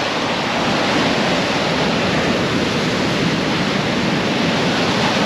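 Ocean surf breaking and washing over a sandy beach close by: a loud, steady rush of white water.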